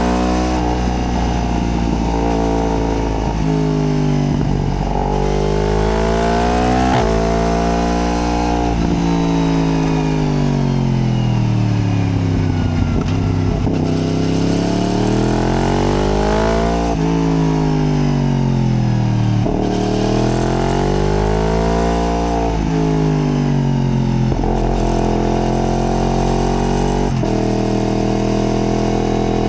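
Yamaha MT-10's crossplane inline-four engine heard from the rider's seat, its note climbing and falling again and again through the bends, with several sudden steps in pitch at gear changes.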